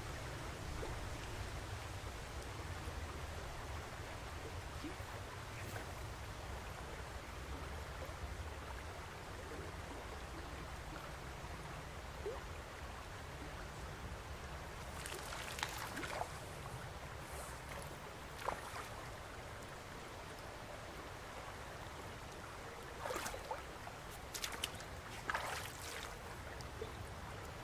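Shallow river running over stones: a steady rush of flowing water, with a few brief sharp sounds about halfway through and again near the end.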